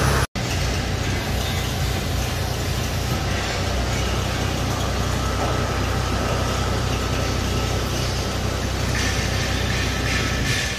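Combine harvester's diesel engine idling steadily, with a momentary break near the start.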